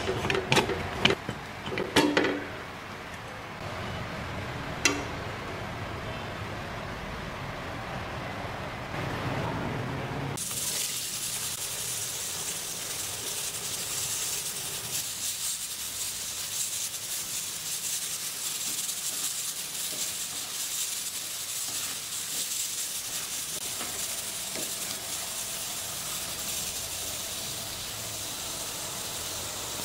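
A few sharp metal clicks and knocks in the first seconds as a pressure cooker's lid is handled. About ten seconds in, a steady sizzle takes over: potato cubes deep-frying in hot oil.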